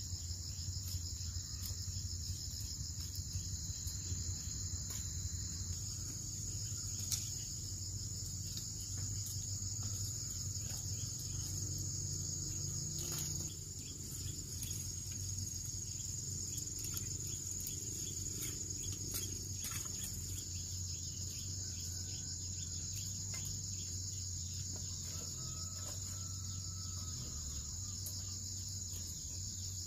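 A steady, high-pitched chorus of chirring insects, with scattered faint clicks over it.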